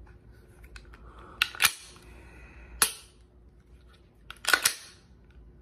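Sharp metallic clicks from the action of unloaded Glock 9mm pistols being handled: two close together, another a little over a second later, then a quick cluster of several near the end.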